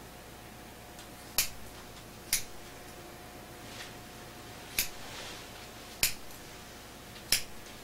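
Hair-cutting scissors snipping through hair: five sharp, separate snips spaced about a second or more apart, over a faint steady hum.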